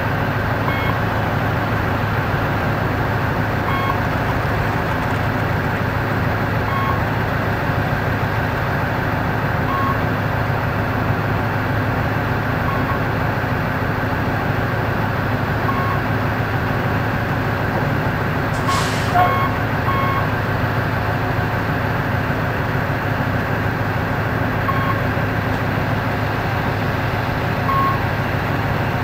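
Heavy diesel engine of a mining low-loader rig running steadily, with a short warning beep about every three seconds. A brief hiss of air about two-thirds of the way through.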